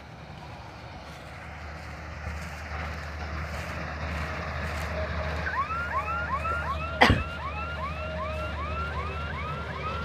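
Simran 676 combine harvester's Ashok Leyland H6 diesel engine and threshing gear running steadily, growing louder as the machine comes closer. From about halfway a rapid, evenly repeating chirping tone starts, about three chirps a second. A single sharp knock comes about seven seconds in.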